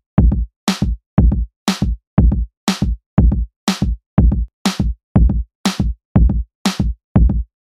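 Background music with a steady electronic drum beat, about two hits a second, each hit followed by a short gap of silence.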